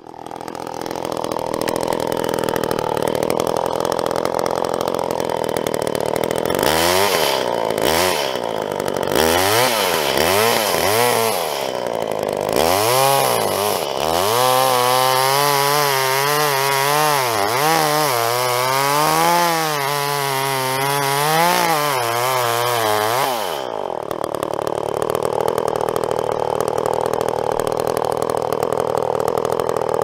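Gas chainsaw cutting through a felled tree trunk. It runs steadily at first, then from about seven seconds in its engine pitch rises and falls over and over as the chain works through the wood, and near the end it settles back to a steady run.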